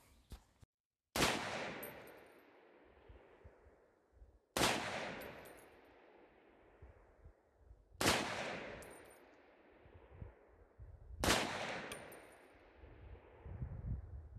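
Springfield Armory M1A Tanker rifle in .308 fired four times in slow, aimed fire, about three and a half seconds apart. Each shot is followed by a long echo dying away and a brief high metallic tinkle.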